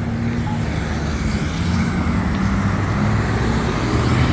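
Road traffic at an intersection: car engines and tyres, with the engine rumble growing slightly louder toward the end as vehicles move through.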